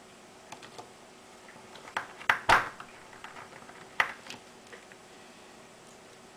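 A screwdriver and small screws clicking and knocking against a plastic project box and its circuit board as the board is screwed in. There are a few light clicks, a cluster of louder knocks about two seconds in, and another sharp knock about four seconds in.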